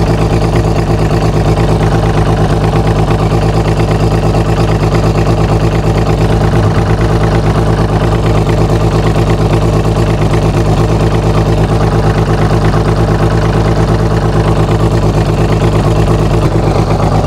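Outboard motor idling steadily while being flushed through flushing muffs, with a salt-removing solution drawn through its cooling system.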